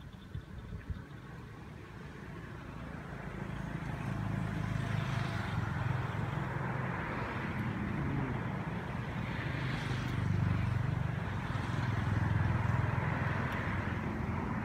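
Motor vehicle engine running close by, a low rumble that builds over the first few seconds and then carries on, swelling twice.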